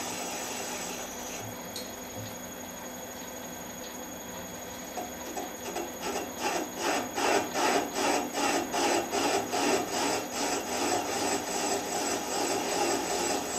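Metal lathe running, its tool chamfering the edge of a spinning aluminium casting: a steady machine hum, then from about five seconds in a rhythmic scraping cut that pulses about twice a second.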